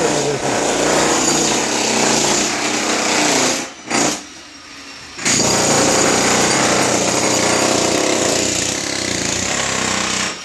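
Electric demolition hammer running, chipping up a tiled concrete floor, with a pause of about a second and a half around four seconds in before it starts hammering again.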